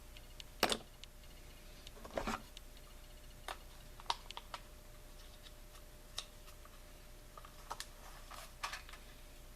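Scattered light clicks and taps of small hard parts being handled: work on a chainsaw's recoil starter, clearing out the broken pull rope. The two loudest clacks come about half a second and two seconds in, with lighter ticks after.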